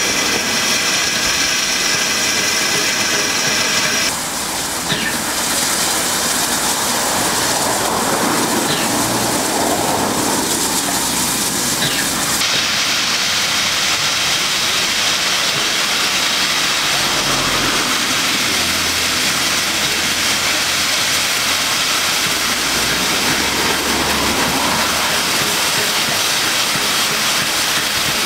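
USATC S160 2-8-0 steam locomotive No. 6046 standing still, with a loud, steady hiss of escaping steam.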